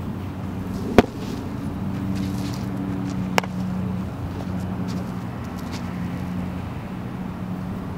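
A pitched baseball pops into the catcher's mitt about a second in, one sharp loud smack, followed a couple of seconds later by a fainter sharp click. Under both runs a steady low hum from an engine or motor.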